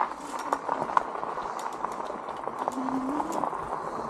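E-bike tyres rolling along a dirt and gravel trail: a steady rough rolling noise scattered with small clicks and ticks.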